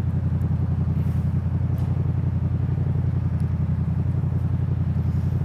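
A motor vehicle's engine running at a steady speed, a low even drone with a fast regular pulse.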